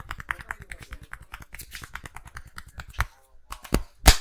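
Fast rhythmic hand percussion on the head during an Indian head massage: a quick, even patter of about nine sharp claps or taps a second, breaking off about three seconds in into three louder single slaps.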